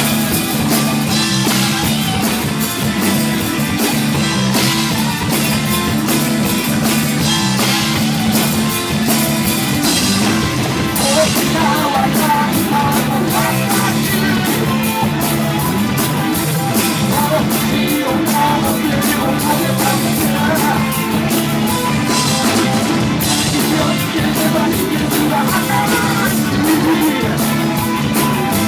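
Live rock band playing loud: drum kit with steady cymbal strokes, electric guitar and keyboards, with a woman singing. The recording is overloaded, so the sound clips and distorts.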